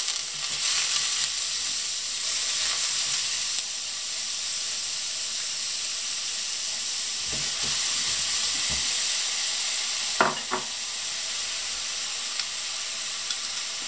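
Finely chopped onion hitting hot olive oil in a deep non-stick pan and sizzling with a steady hiss that starts suddenly and eases only slightly. A few faint knocks come around the middle, and a sharper click about ten seconds in.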